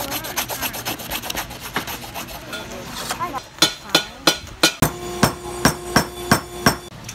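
Rapid back-and-forth rubbing of a small piece being sanded by hand on sandpaper. Then a few sharp knocks of a hammer on a punch over a steel block, followed by about six evenly spaced blows, roughly three a second, of a wooden mallet driving a steel dapping punch into a dapping block, with a ringing metallic tone.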